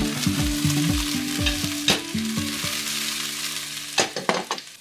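Eggplant chunks and garlic sizzling in hot oil in a nonstick frying pan as they are tossed. Near the end the sizzle thins and a few sharp knocks of the pan are heard as it is taken off the heat.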